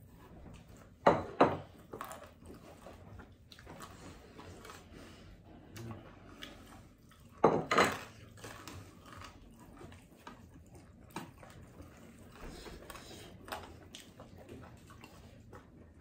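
Eating by hand from ceramic plates: quiet chewing and fingers mixing rice, with two louder double clatters of crockery, one about a second in and one around the middle.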